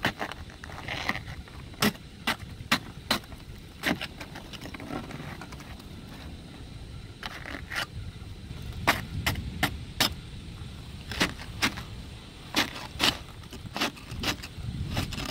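Ice being chipped and scraped off a car with a scraper: a string of sharp, irregular clicks and knocks, thicker in the second half.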